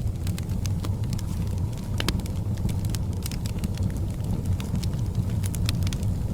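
Wood fire in a fireplace crackling: sharp, irregular pops over a steady low rumble, with one of the louder pops about two seconds in.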